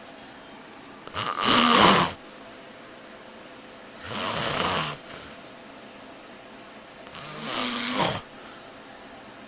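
Loud snoring: three rasping snores, each about a second long, coming about every three seconds.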